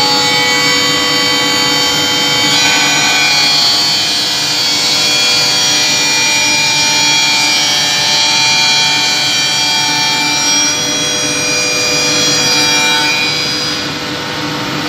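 CNC chair-leg sanding machine running: a steady whir of its spindle motors and sanding heads with several high tones that shift in pitch a few times. It eases off a little near the end.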